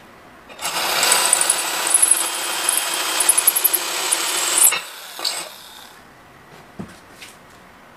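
Cordless drill running for about four seconds with a tile bit grinding against ceramic tile, with high squeaks over the grinding; it stops sharply, followed by a few light knocks.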